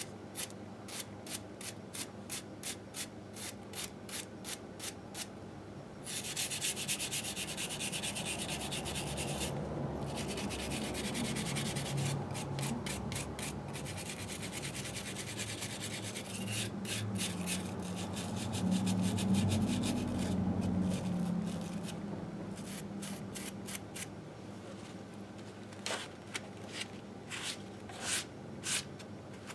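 Hand scrubbing and rubbing grime off the aluminium crankcase of a 1958 Harley-Davidson Sportster engine: rhythmic strokes about two or three a second, turning into faster, continuous scrubbing in the middle, where a low rumble swells for several seconds, then back to separate strokes near the end.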